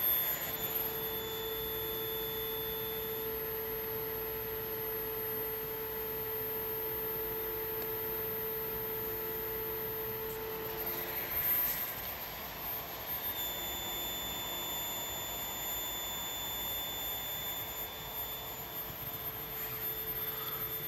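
Ferrite transformer of a push-pull Tesla resonator driver squealing: a steady whine made of several tones, whose pattern shifts about halfway through, with a brief burst of noise near the middle. The squeal comes at the tuning threshold where the resonator is ringing and the bulbs light, just short of overloading the power supply.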